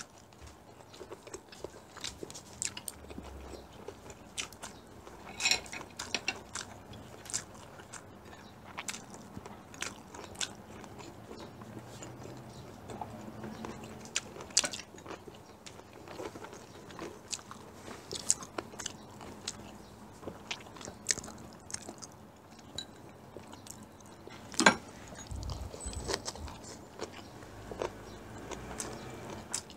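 Close-miked chewing and biting of two people eating rice and pork-kimchi stir-fry. Soft mouth sounds are peppered with short sharp clicks, a few of them much louder than the rest.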